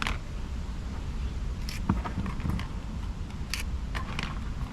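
Scattered small metallic clicks and clinks of parts being handled, as the clutch springs are taken out of a Yamaha T-Max 530 scooter's clutch; several come close together near the end.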